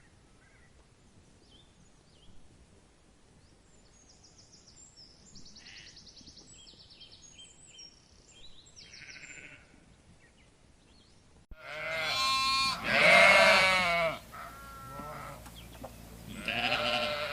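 Faint high chirping and trilling birdsong, then sheep bleating loudly and close by after an abrupt cut about two-thirds of the way through: a couple of long, wavering bleats, with another beginning near the end.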